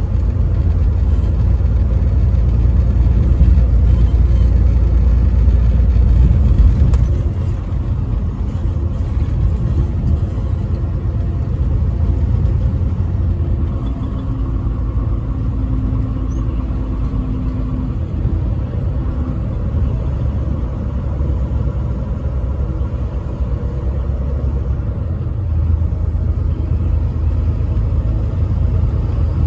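Truck driving at highway speed: a steady low engine and road rumble, which eases slightly about a quarter of the way in.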